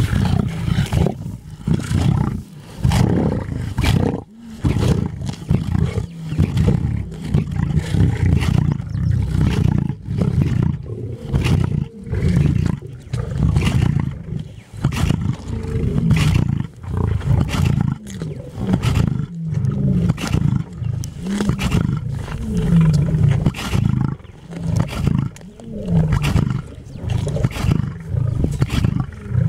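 Male lions growling over a carcass while they feed: a continuous deep, pulsing growl broken every second or so, mixed with sharp cracks of tearing and chewing.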